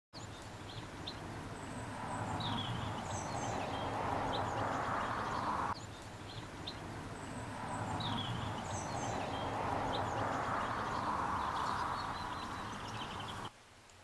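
Small garden birds chirping and twittering in short high calls over a steady rushing background noise that swells and fades. The sound cuts off abruptly near the end.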